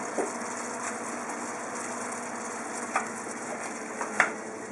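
Apple rings sizzling gently in butter caramel in a frying pan, a steady hiss. A couple of short clicks cut through near the end, the sharpest about four seconds in.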